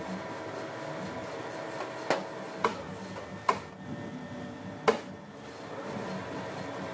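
A machine tool running steadily while a single-point tool cuts a spiral groove into a steel shaft. Four sharp clicks break the steady hum, the last and loudest about five seconds in.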